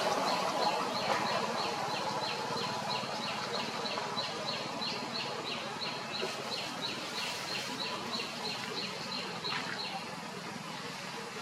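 A rapid, regular series of short high chirps, about three a second, each dropping in pitch, that stops about ten seconds in, over steady outdoor background noise.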